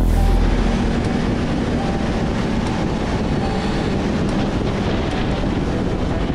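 Sport bike riding along a street: the engine running under a loud, steady rush of wind over the camera microphone, starting abruptly.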